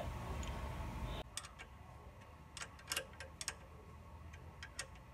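A few light, irregular metal clicks from a wrench and fittings as a clutch slave cylinder is bolted back onto a gearbox housing. A steady background hiss cuts off about a second in.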